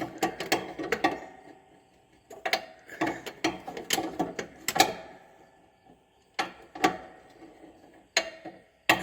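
Hand wrench clicking and clinking against metal in short runs as a tight fitting on a lawn tractor's Hydro-Gear transmission is turned a little at a time, with two brief pauses.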